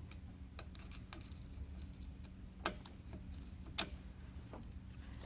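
Scattered sharp clicks and ticks of a Phillips screwdriver snugging up small mounting screws on an oil separator bracket, two of them louder about two and a half and four seconds in, over a low steady hum.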